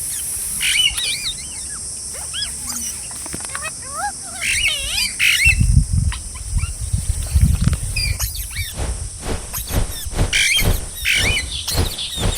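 Green parrots calling in short, screechy, pitch-sliding squawks in several clusters, over a steady high hiss. From about halfway, low rumbling thumps and a run of rapid clicks come in.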